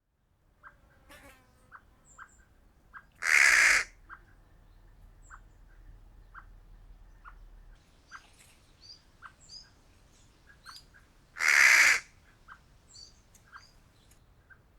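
Crow cawing twice, each a single harsh caw about half a second long, the two about eight seconds apart. Between them, small birds chirp faintly with short repeated notes.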